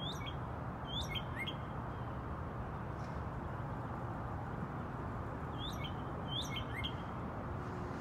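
Male northern cardinal singing: two short phrases of a few quick downslurred whistles, one right at the start and one about six seconds in, over a steady low background rumble.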